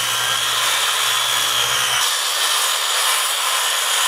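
Circular saw cutting through a plywood Warmboard radiant-heat subfloor panel: a loud, steady whine of the blade in the cut.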